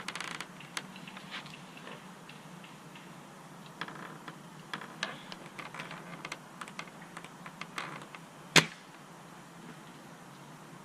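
Scattered light clicks and ticks, like gear being handled, with one sharp, loud snap about eight and a half seconds in.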